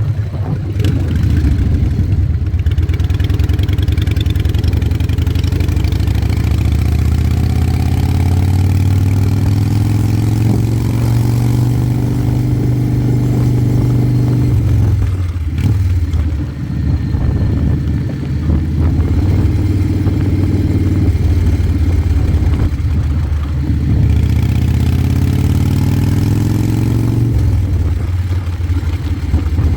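Motorcycle engine under way, its pitch climbing steadily as it accelerates, dropping sharply at a shift about halfway through, then climbing again and dropping once more near the end.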